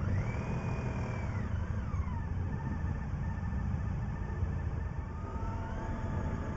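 Motorcycle engines running at low speed in a group, a steady low rumble. One engine's pitch climbs right at the start, holds for about a second and falls back about two seconds in; another climbs again near the end.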